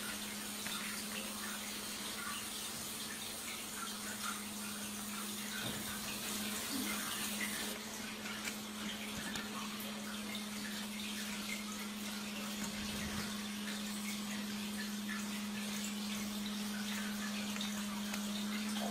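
A steady low hum, constant in pitch, over an even hiss, with faint scattered small scratchy sounds.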